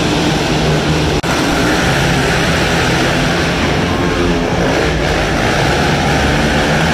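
Several quad ATV engines racing together, a loud, steady buzzing drone that wavers as the riders rev through the turns, with a momentary dropout about a second in.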